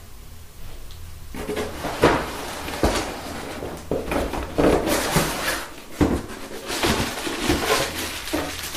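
Cardboard packaging being handled: an inner cardboard tray slid and set down on the shipping box, with rustling, scraping and a few sharp knocks.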